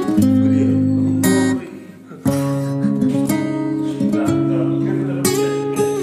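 Background music led by a strummed acoustic guitar, dropping off briefly about two seconds in before resuming.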